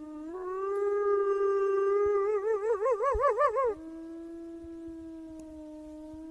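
Wolf howling: one long howl that rises slightly in pitch, then breaks into a wavering warble about two seconds in. Just after halfway it drops abruptly to a quieter, steady howl a little lower in pitch.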